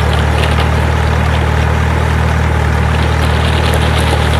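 Truck engine sound effect: a loud, steady low engine drone that never changes pitch, dubbed over the toy dump trucks as they drive.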